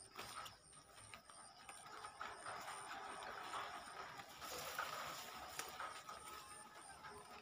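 Faint outdoor ambience: a high-pitched chirping insect, pulsing evenly about three times a second, with a soft rustling of grass and leaves swelling about three to five seconds in.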